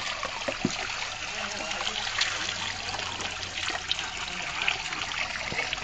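Water trickling steadily in a shallow rocky pond, with a few faint small splashes.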